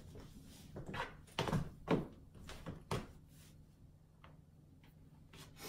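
Footsteps on a hardwood floor: a few soft, irregular thumps and knocks, stronger in the first three seconds and fainter after.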